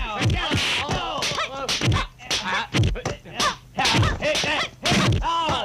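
Kung fu fight soundtrack: the fighters' short shouted cries mixed with sharp slapping punch and block hits, coming in quick succession, about two or three a second.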